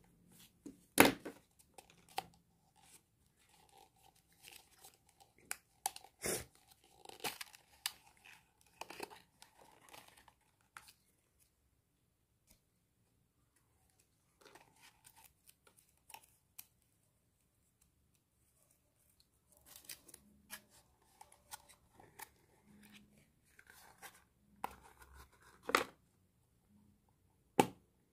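Cardboard and paper packaging being opened by hand: intermittent tearing, rustling and crinkling, broken by a few sharp snaps and clicks, with short quiet gaps between.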